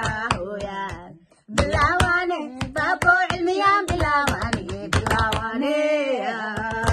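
Women's voices singing together, with hand claps keeping time; the singing stops for a moment about a second and a half in, then goes on.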